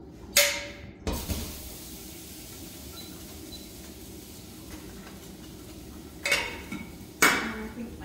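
Stainless steel kettle and pots clinking and clanking as they are handled, with a steady hiss of water heating in a kettle during descaling. There is a ringing clink near the start, the hiss begins about a second in, and two more clanks come near the end.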